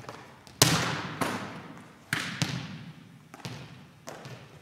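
Volleyball spike reps in a large gym: about six sharp smacks of a hand striking a volleyball and the ball slamming and bouncing on the hard floor, each ringing off into a long echo. The loudest comes about half a second in.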